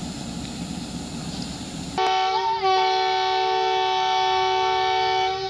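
Train locomotive's horn sounding one long two-note chord, wavering briefly as it starts, held about three and a half seconds and cut off near the end. Before it, about two seconds of low rumble.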